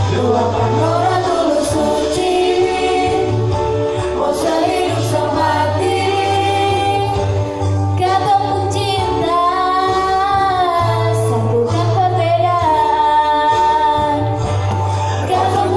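A woman singing a slow ballad melody, holding and bending long notes over a backing track with sustained bass notes.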